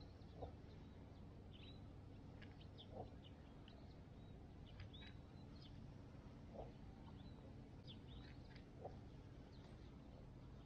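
Faint birdsong: many short, high chirps, with a lower, short call repeating every two to three seconds over a faint low steady hum.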